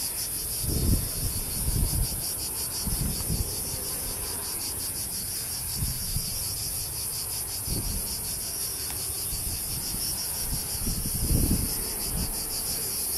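A steady chorus of insects buzzing in a high, rapidly pulsing band. Low gusts of wind buffet the microphone every few seconds, loudest about a second in and again near the end.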